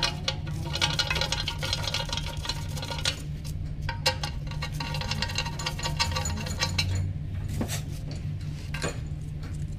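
Handling noise at a workbench: quick light clicks and clinks of small metal fittings and crackling plastic wrap, with scattered single knocks. A steady low hum runs underneath.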